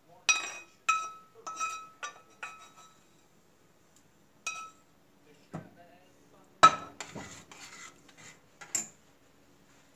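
A metal spoon knocking and scraping against a stainless steel pot, giving ringing clinks about five times in the first three seconds and once more a little later. About six and a half seconds in there is a louder clank of pot and pan, then more clattering and one last sharp clink.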